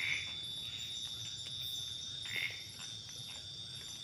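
Night forest insect chorus: a steady, high-pitched ringing of several tones. Two short, lower calls stand out over it, one at the start and one about two and a half seconds in, with a few faint clicks.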